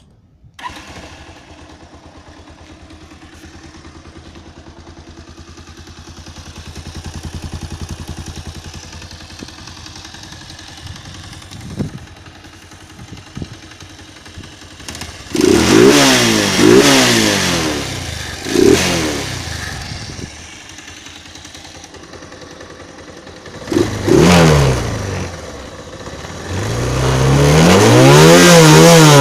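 Bajaj Pulsar 220's single-cylinder 220 cc engine starting up and idling steadily, then revved with three quick throttle blips, another blip, and near the end one long rev that rises and falls.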